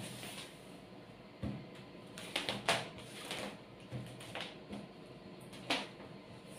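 Cloth and a flexible tape measure being handled on a table: a scattering of brief rustles and soft taps, with a quick cluster about two and a half seconds in and a sharper one near the end.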